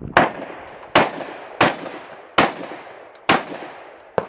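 Five loud gunshots fired one after another, a little under a second apart, each echoing across the range, then a shorter, sharper crack near the end.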